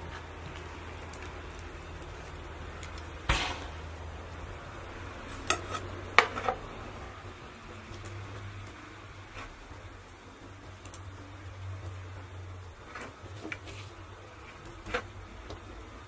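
Sharp clinks and knocks of a knife and roast meat being handled on a large metal serving tray, a handful of separate strikes with the loudest about six seconds in.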